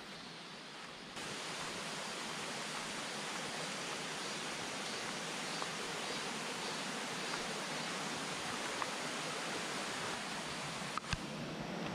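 Small mountain stream rushing over rocks: a steady rush of water that grows louder about a second in, with a couple of sharp knocks near the end.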